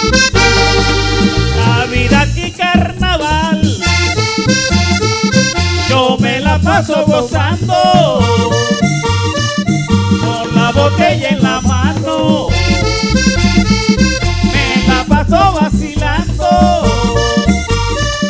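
Instrumental passage of a live Colombian tambora band: accordion playing the melody over a steady, repeating drum beat.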